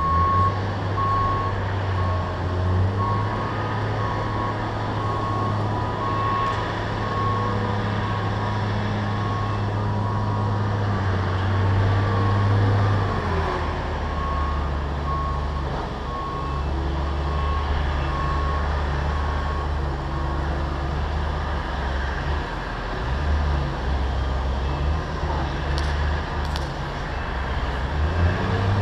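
Heavy diesel engine of a pile-driving rig running steadily, its pitch stepping up and down as the load changes. A vehicle's reversing alarm beeps evenly for about the first eleven seconds. No hammer blows are heard.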